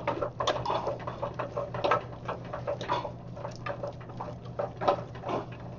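A spoon beating choux paste hard in a metal saucepan to work an egg into the dough: irregular wet slapping and scraping strokes over a steady low hum.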